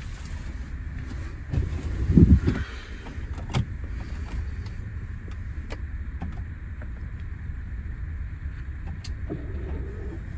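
Mercedes-Benz truck's diesel engine idling while it warms up, heard from inside the cab as a steady low rumble. A brief louder burst comes about two seconds in, followed by a sharp click.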